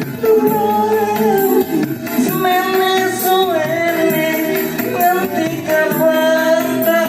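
Live Javanese campursari band music: a wavering sung or played melody line over sustained chords and a steady beat.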